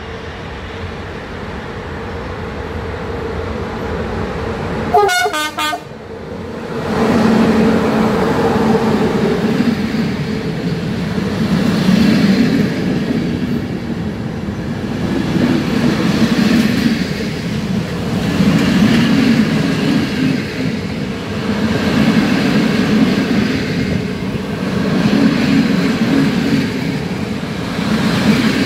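Passenger train approaching, its noise building, with a brief horn toot about five seconds in. Its coaches then roll past close by, the rumble of the wheels on the rails swelling and fading every few seconds.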